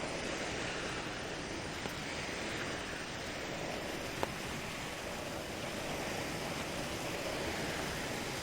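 Steady rushing of wind and small waves lapping at the lake shore, with a single sharp click about four seconds in.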